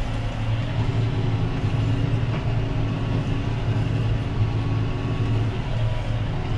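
Tractor engine running steadily under heavy load, heard from inside the cab as it pulls a plough through hard soil.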